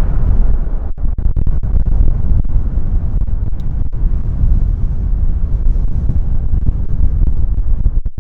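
Deep, loud rumble of a wide-body jet airliner's engines.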